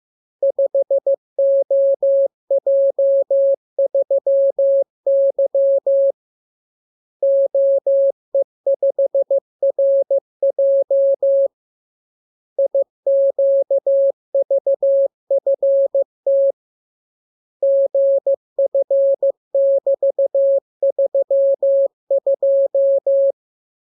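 Morse code sent as a single clean beep of about 600 Hz, keyed on and off in quick dots and dashes. The characters come in runs separated by pauses of about a second, as in a practice radiogram of letters for copying by ear.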